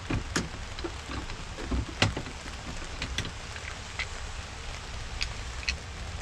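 Scattered light clicks and knocks, about half a dozen with the loudest about two seconds in, as the truck's plastic rear exterior door handle, its two Torx bolts out, is worked loose and handled. They sit over a steady background hiss.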